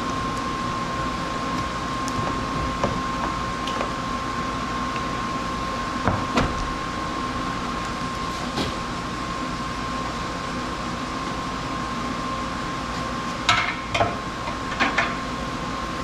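Steady workshop hum with a constant high tone, broken by a few short knocks and clicks, and two louder pairs of knocks near the end.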